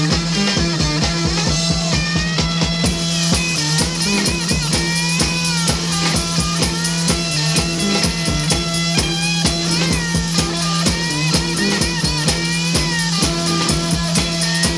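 1960s beat-band rock music, a mono transfer from a vinyl LP: a drum kit keeps a steady beat under electric guitar and bass, with a lead line of bending, wavering notes and no singing.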